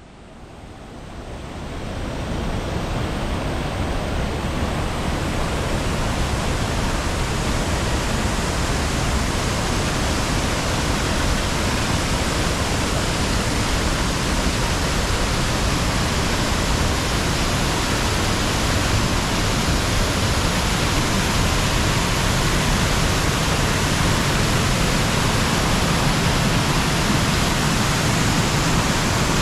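Waterfall's steady rush of falling water, fading in over the first couple of seconds.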